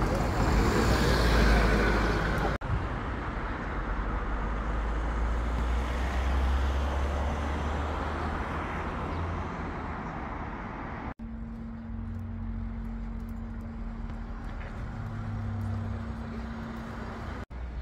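Outdoor ambience from several short clips cut together, each breaking off abruptly at the cut: a steady low rumble under a noisy hiss, and in the later clip a faint steady hum.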